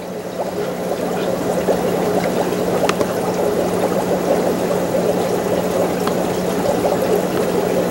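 Aquarium water bubbling and trickling, typical of an air-driven filter, over a steady low hum; it swells up over the first second or so and then holds steady.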